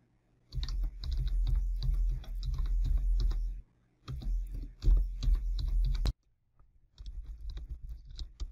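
Computer keyboard typing: two long runs of rapid keystrokes with a short pause between, then a quieter, sparser run of keys near the end.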